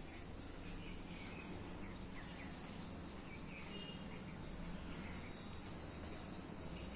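Faint steady background noise with a few short, high chirps.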